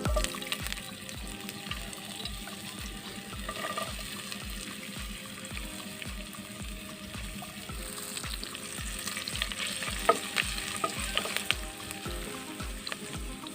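Food frying in oil in a pan, sizzling steadily, with scattered clicks and scrapes of a spoon or spatula stirring, one sharper knock about ten seconds in. Quiet background music with a steady beat plays underneath.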